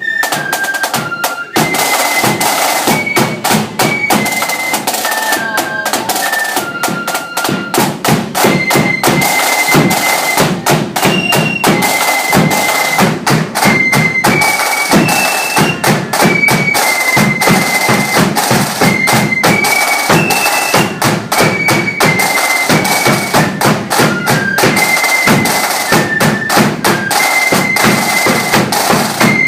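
Marching flute band playing: a single high melody line of flutes in unison over loud, rapid, driving drums.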